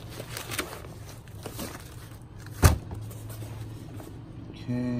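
Rustling and handling of a fabric tote bag stuffed with papers, with soft crinkles and one sharp click about two and a half seconds in, over a steady low hum.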